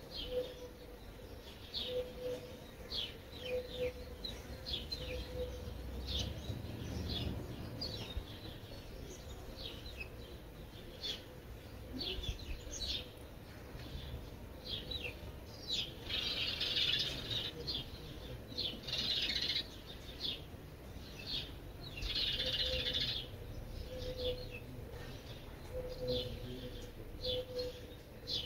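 Small garden birds chirping, short high chirps every second or so, with two longer bursts of twittering about halfway through and again a few seconds later. A faint low call repeats on and off in the background.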